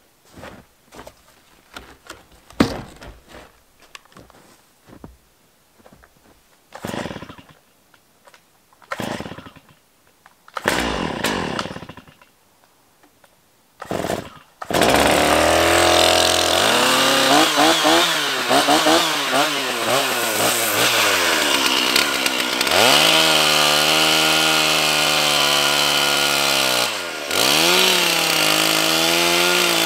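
Gas chainsaw being pull-started: several short pull-cord rips among handling knocks, then about halfway through the two-stroke engine catches and keeps running, revving up and down.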